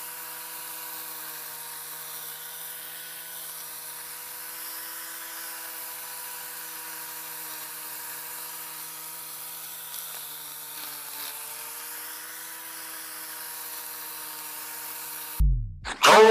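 Angle grinder's small electric motor whining at a steady speed, its pitch dipping briefly about ten seconds in. Near the end the whine stops and a short falling swoop follows.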